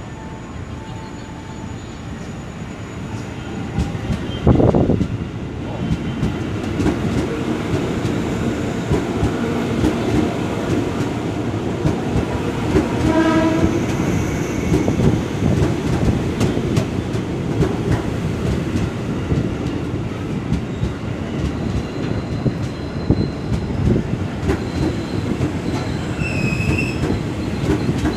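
Train passing at track side: a continuous rumble of wheels with rhythmic clickety-clack that builds a few seconds in. There is a loud thump about four and a half seconds in and a short horn blast about halfway through.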